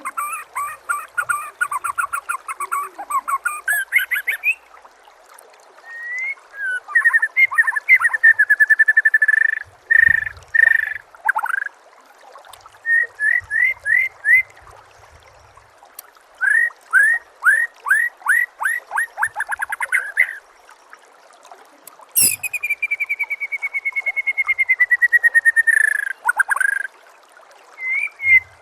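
White-rumped shama (murai batu) singing a varied, rapid song packed with fill-in phrases (isian): fast trills, runs of repeated upswept chirps and whistled notes, in bursts with short pauses. A long falling trill comes about two-thirds of the way through.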